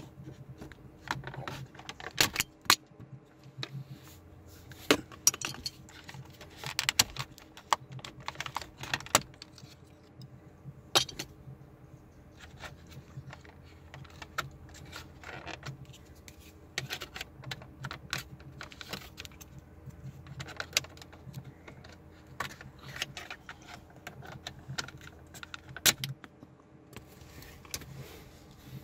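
Irregular plastic clicks, snaps and knocks as the climate control knobs and dash trim of a 2007 Nissan Versa are pried off by hand.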